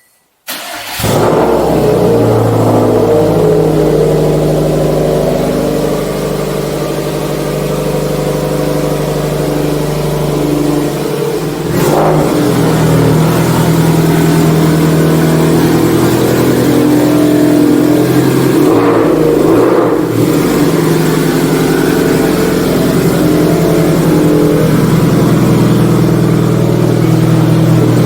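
Subaru STI's turbocharged flat-four running loud through a Tomei aftermarket exhaust, coming in abruptly about half a second in and holding a steady note with a few small changes in revs. The exhaust is newly resealed with fresh gaskets, no longer leaking.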